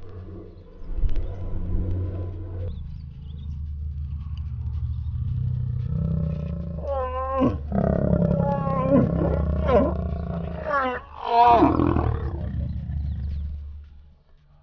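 Lions growling while mating: a deep, continuous growl, joined from about seven seconds in by louder, pitched snarls that rise and fall, the loudest near the end as copulation finishes.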